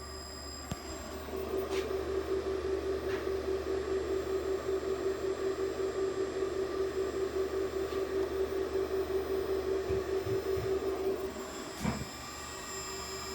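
Electric motor run from a Baldor H2 vector drive under test, giving a steady pulsing whine that starts about a second in and stops about eleven seconds in, followed by a knock.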